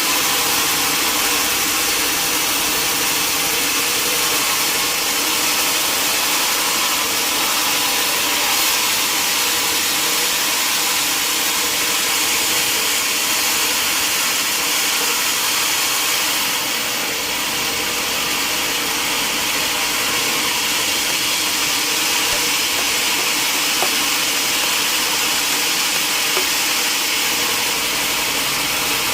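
Sawmill saw machinery running steadily, a continuous loud mechanical noise with a steady hum, dipping slightly about halfway through.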